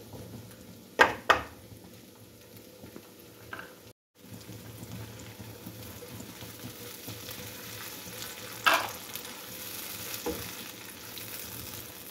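Onions and tomato puree sizzling in hot oil in a karahi while being stirred with a silicone spatula. Two sharp knocks come about a second in and another near nine seconds, and the sound cuts out for a moment about four seconds in.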